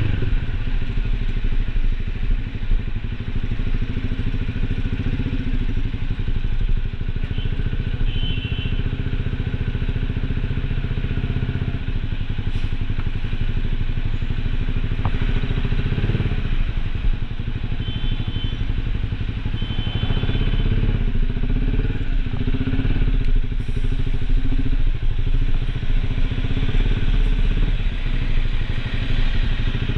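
Small engine running steadily, its low hum changing slightly a few times.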